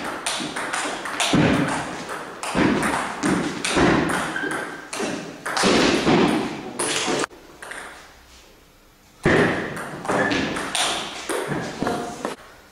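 Table tennis ball knocking back and forth off bats and table in a rally, quick sharp knocks with a ringing echo. The knocks stop about seven seconds in, and a second short run follows about two seconds later.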